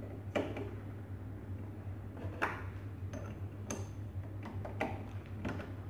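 Scattered small metallic clicks and knocks, about five of them, as hands handle the chuck and quill of a bench drill press, over a low steady hum.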